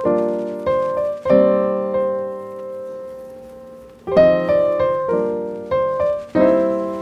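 Background piano music: chords struck and left to ring. One chord dies away slowly for nearly three seconds before the playing picks up again about four seconds in.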